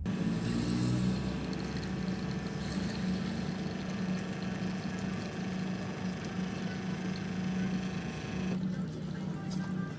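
A steady motor or engine hum with a constant low drone, running evenly; the higher part of the sound drops away near the end.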